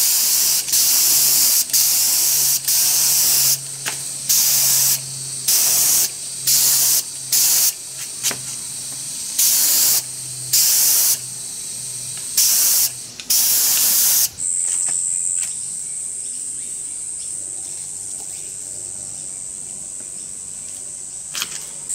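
A gravity-feed HVLP spray gun spraying nitrocellulose sanding sealer in about a dozen short bursts of high hiss, each a second or less, as the trigger is pulled and released. The spraying stops about fourteen seconds in.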